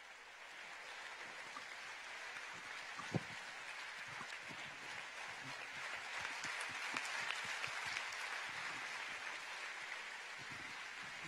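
Audience applauding, the clapping building gradually louder, with a single knock about three seconds in.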